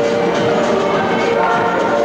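Latin dance music playing for couples dancing, with held melody notes over a steady beat.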